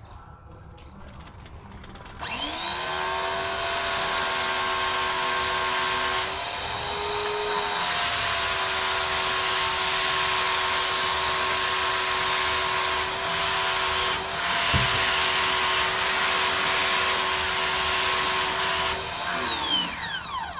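Pressure washer feeding an undercarriage multi-jet sprayer: the motor starts about two seconds in with a rising whine, runs at a steady pitch under the hiss of water jets, then winds down with a falling pitch near the end.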